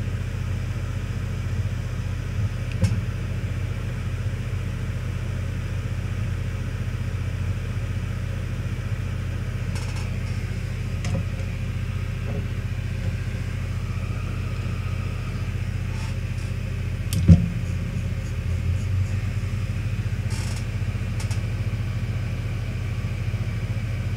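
A running fan's steady low hum, with a few light clicks and one sharper knock about seventeen seconds in, from tweezers and a replacement MOSFET being set onto a circuit board's solder pads.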